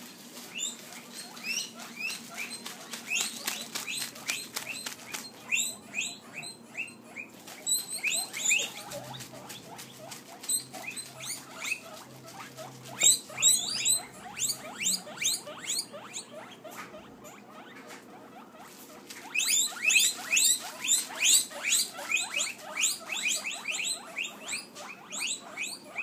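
Guinea pigs wheeking: quick runs of high, rising squeals, several a second, the begging call of hungry guinea pigs. The calls come in bouts with short lulls between, the longest and loudest bout starting about three-quarters of the way through.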